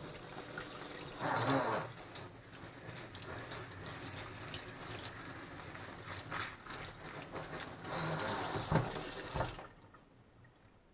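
Kitchen tap water running and splashing onto baby king oyster mushrooms in a plastic colander over a stainless steel sink as the colander is swirled under the stream. The flow grows louder twice and stops near the end.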